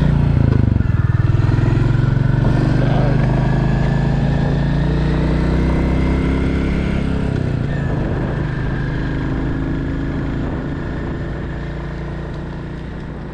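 Royal Enfield Classic 350's single-cylinder engine running at road speed. Its pitch climbs slowly, then drops about seven and a half seconds in, and the sound gradually fades over the last several seconds.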